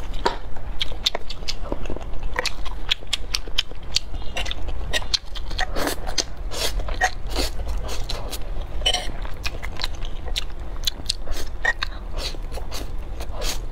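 Close-up mouth sounds of a person eating saucy noodles: slurping and chewing, with many short wet clicks and smacks at irregular intervals.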